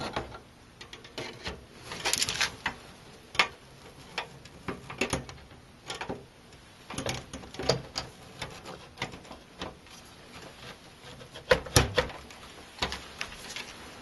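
A graphics card being handled and slid into a PCIe slot inside a PC case: irregular clicks, light knocks and scrapes of metal and plastic, loudest about two seconds in and again near twelve seconds.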